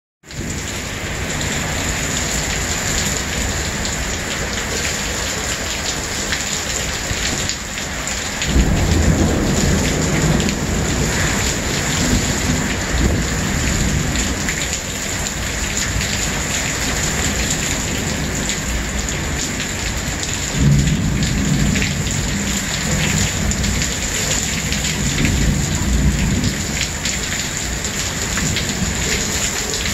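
Heavy thunderstorm downpour: rain pouring down in a steady hiss. Thunder rumbles in deep about a third of the way through and again about two-thirds of the way through.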